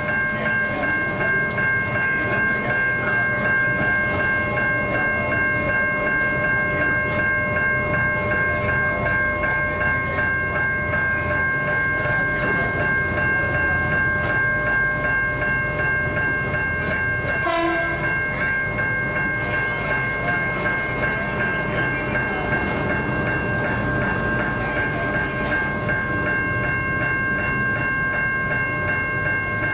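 Level crossing electronic bells ringing continuously in a fast, steady pulse while a train rumbles through the crossing. There is one brief sharp sound a little past halfway.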